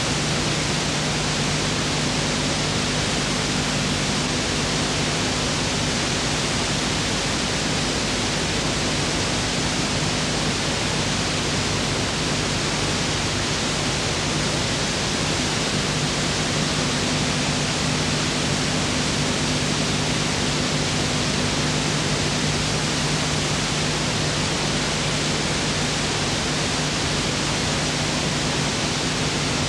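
Steady hiss with a low, even hum underneath: sound-track noise on footage that has no other sound.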